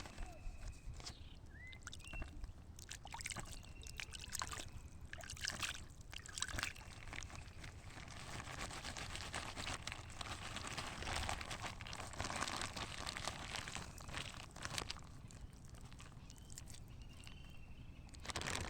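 Pond water splashing and sloshing irregularly, with trickling and dripping.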